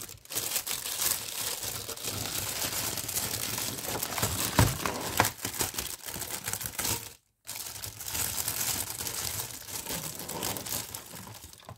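Clear plastic wrapping crinkling and tearing as it is pulled off a bundle of white plastic Q-Snap frame tubes and connectors, with one sharper knock about halfway through and a brief break about two-thirds of the way in.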